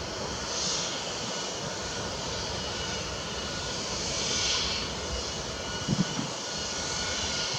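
A steady engine drone with a rumble underneath, its hiss swelling twice.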